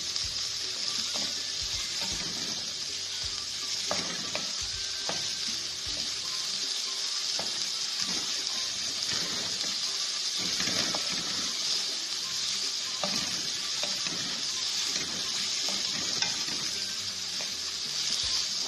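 Sliced onions sizzling in hot oil in a metal kadai as they are sautéed, stirred with a wooden spoon that scrapes and knocks against the pan now and then.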